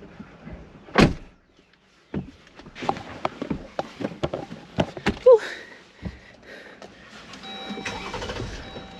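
A Jeep door shutting with a solid thunk about a second in, followed by scattered knocks and rattles of movement in the vehicle and a brief squeak. A steady hum with faint held tones comes in near the end.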